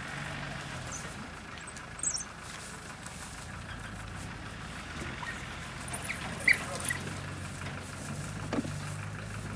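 A vehicle engine idling with a steady low hum. Over it come a few short, sharp sounds as African wild dogs tear and chew at a carcass, the loudest about two seconds in and again around six and a half seconds.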